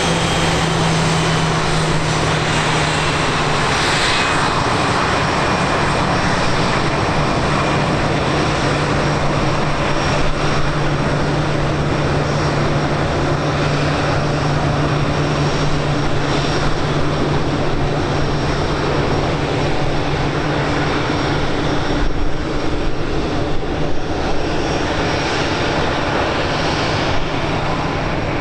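Airliner's engines running with a steady low hum, a faint high whine falling slowly over the first few seconds, heard through wind buffeting a camcorder microphone.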